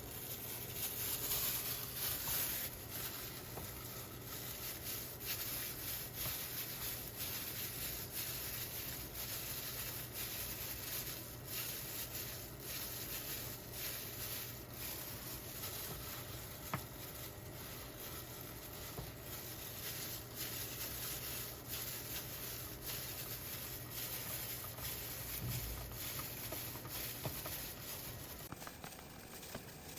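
Beaten egg sizzling in a frying pan: a steady hiss with small scattered clicks.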